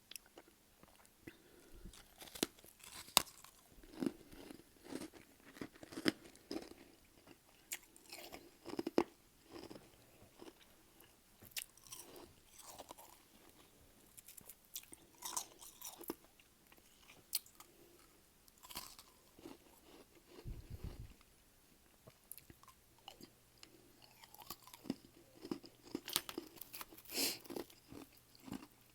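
A person biting and chewing mouthfuls of freezer frost close to the microphone: irregular, crisp crunches in clusters with short pauses between bites.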